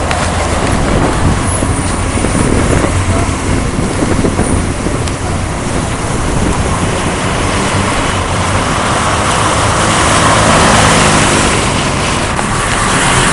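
Steady engine and road noise of a moving car driving through city traffic, swelling slightly near the end.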